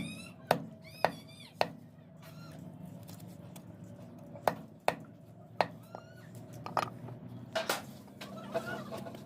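Chickens or chicks giving short, arched high calls every second or so. Several sharp knocks come in between, two close together about half a second in and again about four and a half seconds in.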